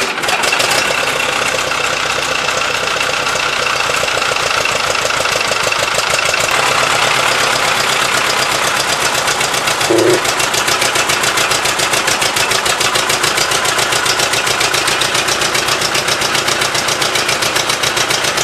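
Ford 8N tractor's four-cylinder flathead engine running steadily just after starting, its crankcase freshly filled with thick 15W-50 oil and Lucas heavy-duty oil stabilizer.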